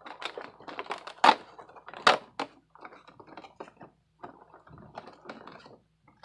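Cardboard advent calendar door being pried and torn open and a small wrapped toy figure pulled out, a run of irregular crackles, clicks and rustles of card and packaging. The two sharpest cracks come about a second and two seconds in.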